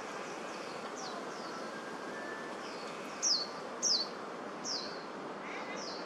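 A bird's short, high chirps, each sliding quickly down in pitch, repeated every half second or so; faint at first, then three loud ones from about three to five seconds in. Steady background noise runs underneath.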